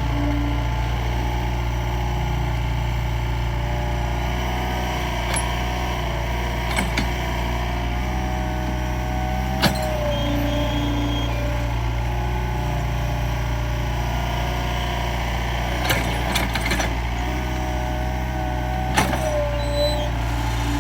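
Mini excavator's diesel engine running steadily under work, with a whine that wavers in pitch and several sharp clanks scattered through.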